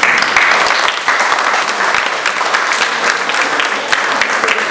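Audience applause: many people clapping together, starting suddenly and keeping up at a steady level.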